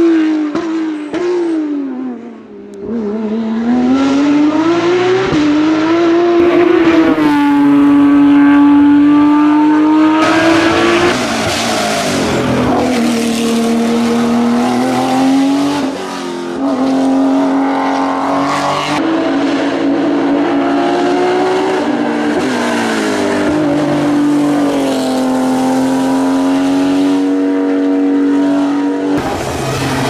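Porsche 991.2 GT3 Cup race car's 4.0-litre flat-six at full song under hard acceleration. Its note climbs with the revs, holds, then drops at each gear change or lift for a corner, several times over.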